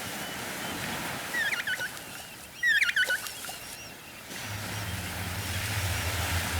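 Two short bursts of high, squeaky chirping calls over a wash of sea sound, the second louder. A low steady hum starts about four and a half seconds in.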